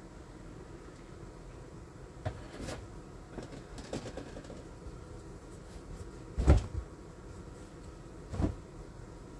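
Handling of a plastic twin-tub portable washing machine as towels are lifted out of its spin basket: a few light knocks, then two dull thumps on the plastic, the louder one about six and a half seconds in and another two seconds later.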